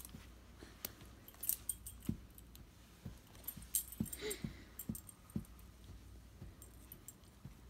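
Light metal jingling and clinking with soft scattered knocks, as a husky in a harness shifts about while a sock is pulled onto its front paw.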